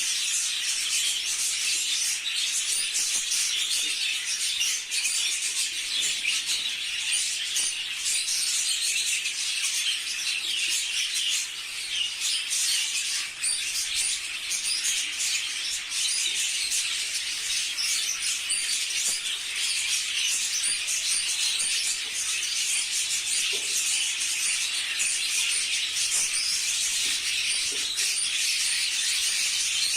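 A large flock of budgerigars chattering and chirping all at once, a dense, unbroken high-pitched chatter.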